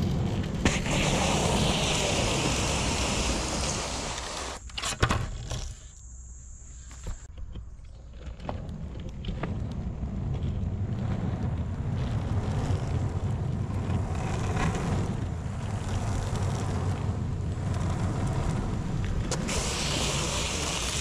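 Shark Wheel skateboard wheels rolling over asphalt: a steady road rumble and hiss, with wind on the microphone. A few sharp knocks come about five seconds in, followed by a quieter stretch before the rolling noise picks up again.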